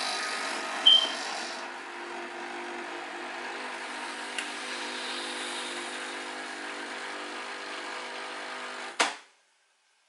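Nescafé Dolce Gusto capsule coffee machine brewing into a mug: its pump running with a steady vibrating hum, cutting off suddenly near the end. A brief high chirp comes about a second in.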